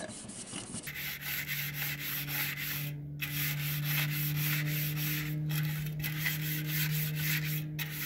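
Stiff plastic scrub brush scrubbing a wet aluminium shower door track in quick back-and-forth strokes, pausing briefly three times, to clean off old caulk. A steady low hum runs underneath.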